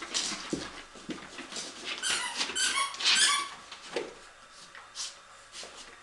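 Border terriers at play, with short breathy, scuffling sounds. About two seconds in comes a run of three high-pitched dog whines.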